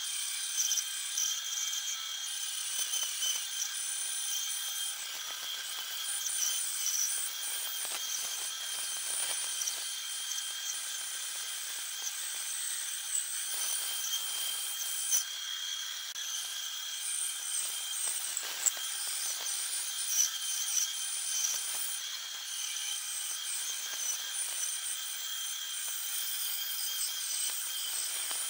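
Benchtop bandsaw cutting through a thick wooden block along a curved traced outline: a steady high-pitched whine and hiss from the running blade in the wood, with a few sharp ticks.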